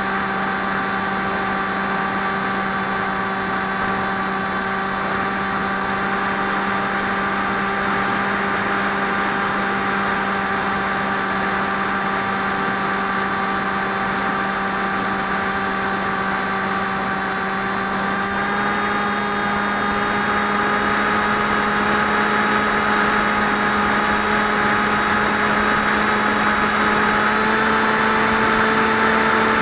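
Electric motor and propeller of a Swift 2 FPV model aircraft, a steady hum with a hiss of rushing air behind it. Its pitch rises slightly a little over halfway through and again near the end, as the throttle is opened further.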